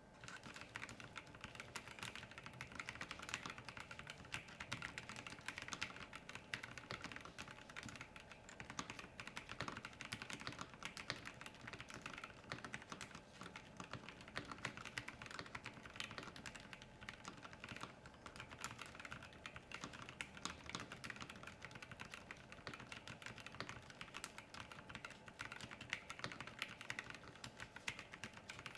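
Continuous typing on a Keychron V5 Max mechanical keyboard with Gateron Jupiter Red linear switches: a steady, unbroken stream of keystrokes.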